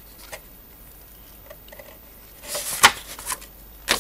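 Paper instruction-booklet pages being handled and turned: light rustling, then a rustle with a sharp flap of paper about two and a half seconds in and another short snap of paper near the end.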